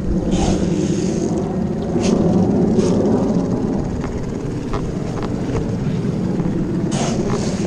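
A steady low mechanical hum, like a motor or engine running, throughout, with a few short clicks.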